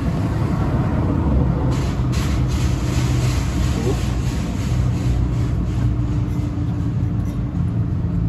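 Truck engine idling steadily, with a brief hiss partway through.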